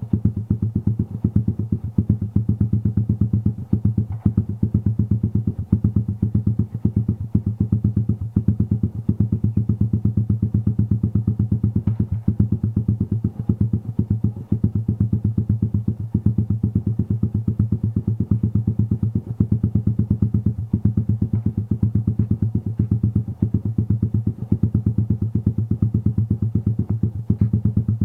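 Modenas MR1 motorcycle's cold carburetted engine idling steadily through an aftermarket EPOWER Black Cobra exhaust while it warms up, a fast, even train of exhaust pulses with no revs.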